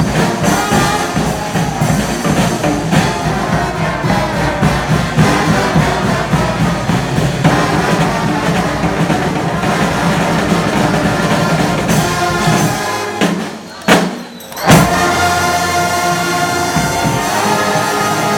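Street band playing loud music with drums and percussion. About thirteen seconds in the music drops out briefly, broken by two loud hits, then the band comes back in on held notes.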